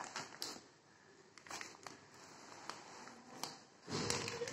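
Sheets of paper being handled and shifted on a table: faint rustling with scattered light taps and clicks, and a louder short sound about four seconds in.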